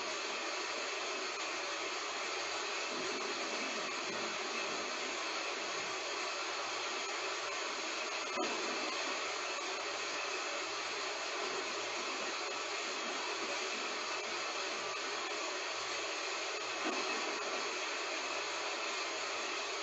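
Heavy rain falling steadily, an even hiss without thunder, with two faint brief ticks, one about eight seconds in and one near the end.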